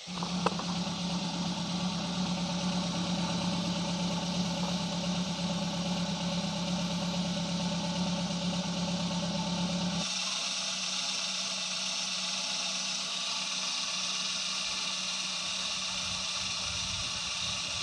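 Daihatsu Gran Max 1.3-litre four-cylinder engine idling steadily after its too-loose valve clearances have been readjusted, now running back to standard instead of rough. For about the first ten seconds it is heard at the tailpipe as a steady low hum. It then changes abruptly to a brighter, hissier sound with little low hum, heard from beneath the engine.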